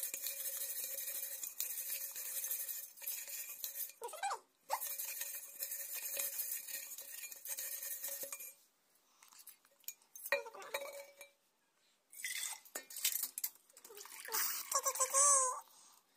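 Copper water bottle being shaken and handled with cleaning solution inside: a steady sloshing hiss with light metallic clinks, then a few shorter bursts of handling after about eight seconds.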